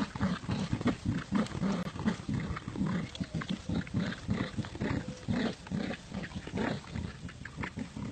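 Dogs growling while playing tug-of-war over a toy, a rapid uneven run of short growls, about three or four a second.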